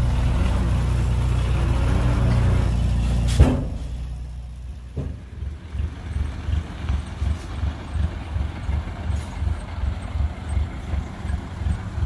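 Heavy diesel vehicle engine running steadily, cut by a sharp short burst about three and a half seconds in. After that a lower, throbbing engine sound pulses about twice a second.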